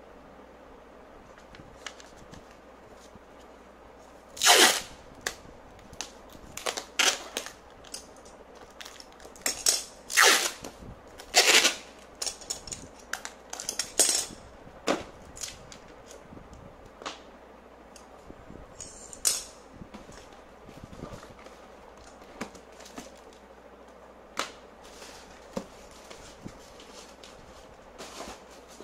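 Clear packing tape pulled off the roll in several short, loud strips, clustered in the first half, with lighter handling of paper and cardboard between and after them.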